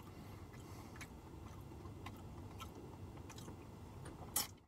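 Faint chewing and small clicks of someone eating soft sweet potato with a fork, over a low steady hum.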